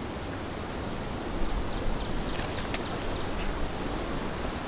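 Small card tag and packaging handled by hand, a few brief light crinkles about halfway through, over a steady outdoor rustle of leaves.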